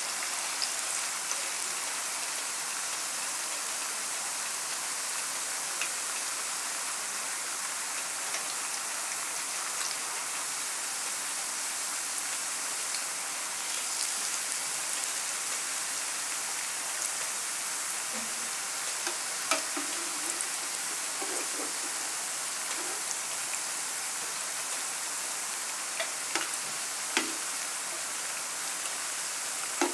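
Plantain slices deep-frying in hot oil in a nonstick frying pan: a steady sizzle. In the last part a few sharp clicks and taps are heard as a slotted spatula turns the slices in the pan.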